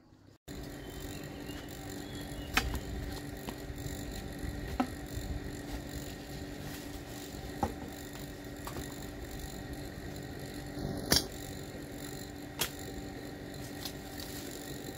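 Sharp knocks about six times, irregularly spaced, over a steady hum that starts abruptly about half a second in.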